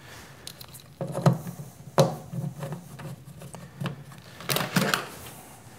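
Handling noise from a bundle of shielded cables with circular plug connectors being gathered up: rustling, with a handful of light knocks and clicks as the connectors and cable touch the bench and the box, the sharpest about two seconds in.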